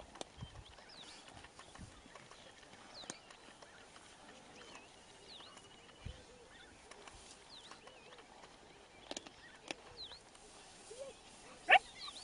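Quiet grassland ambience with faint high chirps, a thin whistle and a few soft knocks. Near the end comes one short, sharp call rising steeply in pitch, from spotted hyenas feeding at a kill.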